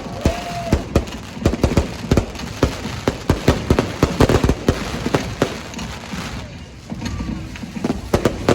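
Fireworks display going off, a rapid run of bangs and crackles that eases off for a couple of seconds near the end before more bangs.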